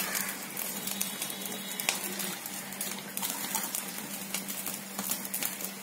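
Cooking oil poured from a container into an empty kadai (wok): a soft, steady pouring hiss with a few faint clicks, over a low steady hum.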